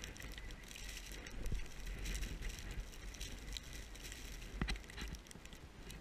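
Wind buffeting a body-worn camera's microphone, a low rumble with crackling, broken by a few knocks of handling on the camera and jacket, the loudest about four and a half seconds in.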